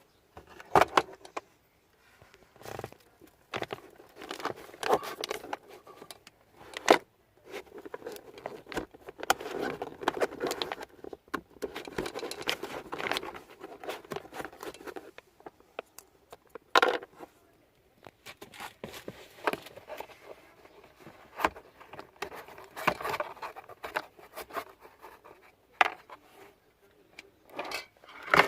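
Hands handling plastic car-interior parts: irregular clicks and knocks with rustling, scraping noise between them, as in opening up the housing to change the cabin air filter. Sharper knocks come about a second in, near 7 s and near 17 s.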